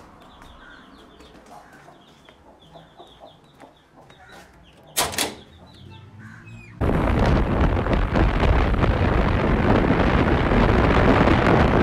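Quiet indoor sounds with one sharp knock about five seconds in. About seven seconds in, a loud steady rush of wind and road noise starts on the microphone of a moving vehicle and cuts off abruptly near the end.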